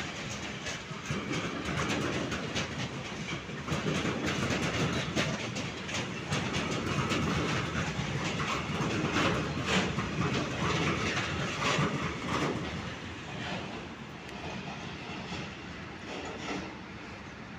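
Freight train wagons rolling past, wheels clacking steadily over rail joints and points with a rumbling undertone; the sound grows quieter in the last few seconds.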